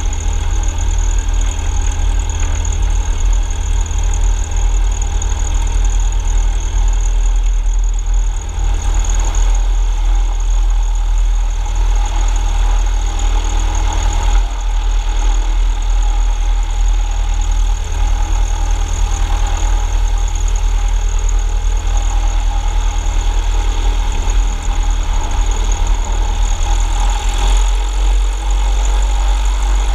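Diamond DA-40 light plane's piston engine and propeller running steadily at low taxi power, heard from under the wing with a heavy low rumble. The low rumble drops slightly near the end.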